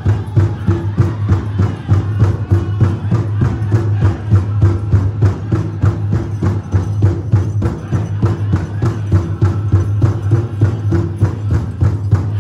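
Powwow big drum beaten in a steady, fast, even rhythm, about four beats a second, as the drum group plays a dance song.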